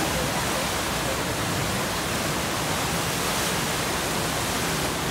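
Steady rush of fast-flowing whitewater from the Eisbach standing wave, river water pouring and churning over the wave without letting up.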